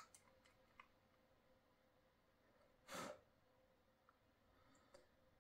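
Near silence, broken by a few faint clicks of a metal H0 model locomotive and its packaging being handled, and a short sigh-like exhale about three seconds in.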